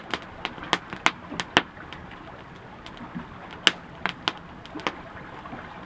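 Campfire of burning wood crackling: sharp, irregular pops over a steady soft hiss, with a quick cluster of pops in the first two seconds and a few more scattered later.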